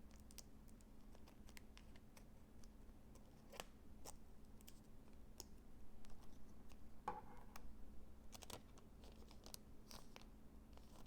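Faint handling of Pokémon trading cards and booster packs: scattered small clicks, taps and scratches, with a brief louder rustle about seven seconds in.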